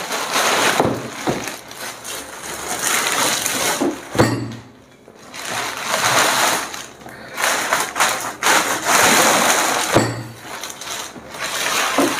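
Thin polythene packaging bag crinkling and rustling as it is pulled off a soft-sided fabric trolley suitcase, in bursts with short pauses. A couple of dull thumps come as the suitcase is handled.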